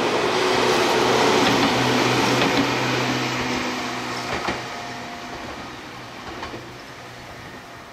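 Gakunan Railway electric train passing close by and pulling away: wheels running on the rails with a steady low hum and a few sharp clacks. It is loudest about a second or two in and fades steadily after that.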